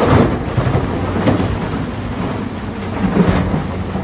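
A wheel loader tips a bucket of loose dark material into a steel dump-truck bed, with the rushing, rumbling pour of the load over the steady hum of diesel engines. The pour surges louder right at the start, again about a second in, and again near the end.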